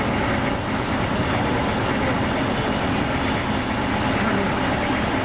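Fire apparatus engine running steadily while pumping water to hose lines: a constant engine drone under an even rushing noise.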